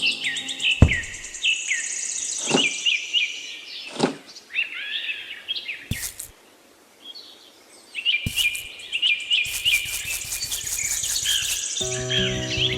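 Birds chirping in quick repeated calls, with a few sharp knocks or taps scattered among them. Music comes in near the end.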